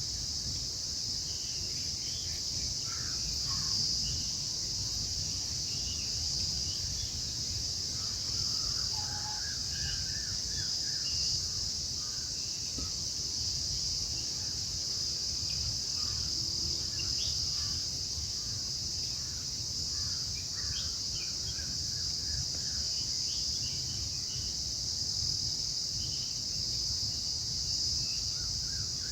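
Steady high-pitched drone of an insect chorus, crickets or cicadas, with scattered short bird chirps and calls over it.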